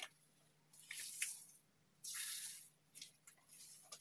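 Hands squeezing and kneading fluffy slime made with shaving foam, giving wet squishes and small crackles. There is a short squelch about a second in, and a longer, louder one just after two seconds.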